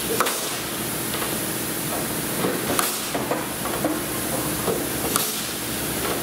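Blind rivets being pulled along an aluminium flaperon skin with a rivet gun: sharp snaps as the mandrels break, one near the start and one about halfway, over a steady hiss.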